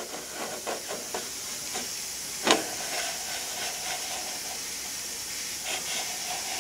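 Brass shim-stock brushes scraping and lightly clicking on the commutator of a small model dynamo as its armature is turned slowly by hand, over a steady hiss. One sharper click comes about two and a half seconds in.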